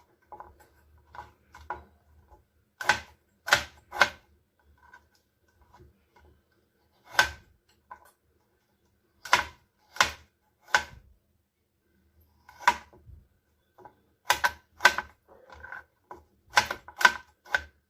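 Knife cutting peeled bamboo shoots on a chopping board: short, sharp knocks at an irregular pace, some single and some in quick pairs or threes, with pauses between.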